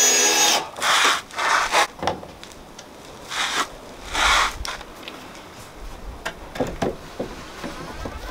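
A wooden plank sliding and rubbing along a wooden deck-board tabletop. A squeaky rub stops about half a second in, then come four short scrapes over the next few seconds and a few faint knocks near the end.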